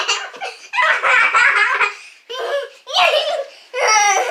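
Children laughing in several bursts.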